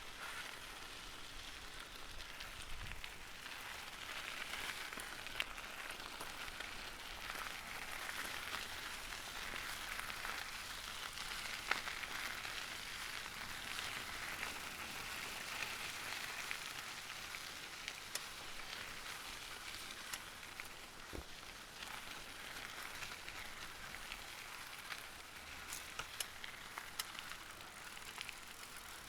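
Bicycle tyres rolling over loose gravel: a steady crunching hiss with scattered sharp ticks of stones, swelling a little in the middle.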